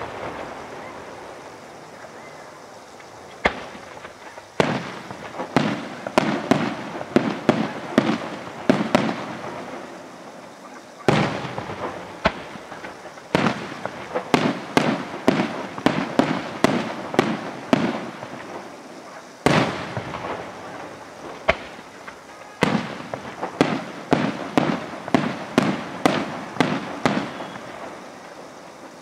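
Aerial fireworks display: shells bursting in three waves, each opened by a loud boom and followed by a rapid run of sharp cracking reports, several a second, with short lulls between the waves.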